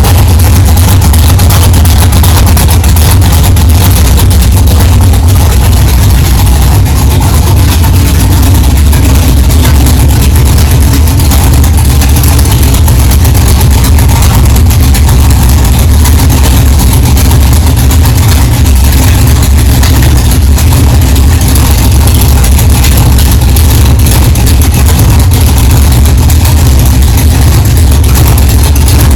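A 383 cubic-inch V8 in a 1964 Chevelle idling steadily with a heavy, low exhaust note.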